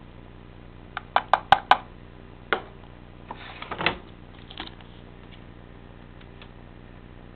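Bauknecht washing machine starting a 95 °C boil-wash cycle: a quick run of five sharp mechanical clicks about a second in, one more click, then a brief rattling clatter, over a faint steady hum.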